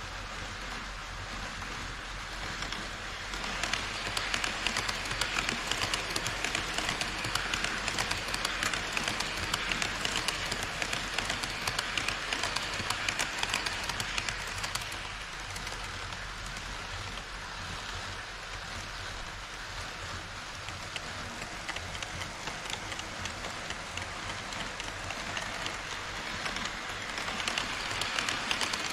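HO-scale model trains running on Kato Unitrack: a steady rushing of wheels on rail with rapid fine clicking over the track joints. It grows louder about four seconds in, eases off midway, and swells again near the end as the E5 Shinkansen model runs close past.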